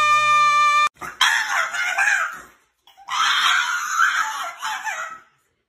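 A French bulldog screaming in two long bouts in protest at having its feet handled. Before it, in the first second, a steady held high note cuts off suddenly.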